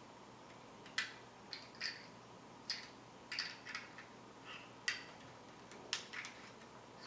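Sharp small clicks and taps, about ten of them at irregular intervals, from a plastic USB memory stick being handled and turned over in the fingers.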